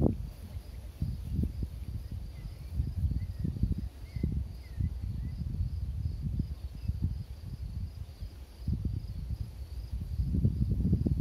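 Wind buffeting the microphone in uneven gusts, the loudest sound. Underneath, a faint steady insect trill runs high above, with a few faint short chirps two to five seconds in.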